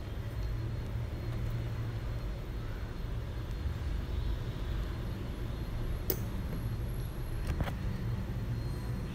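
A steady low rumble, like road traffic or a running motor, with two sharp clicks about a second and a half apart, two-thirds of the way in.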